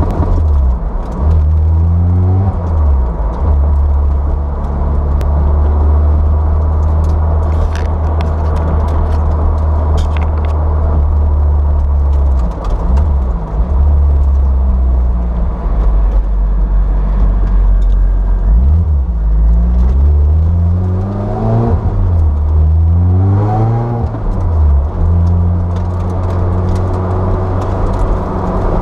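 Supercharged four-cylinder engine of a Lotus Exige S running at low revs while the car rolls slowly, heard from inside the cabin. The revs rise and fall briefly a few times, most clearly twice in quick succession about two-thirds of the way through.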